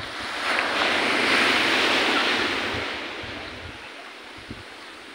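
Sea surf: a small wave breaks and washes up the sand, a rushing sound that swells about half a second in and fades away over the next few seconds. Light wind rumbles on the microphone underneath.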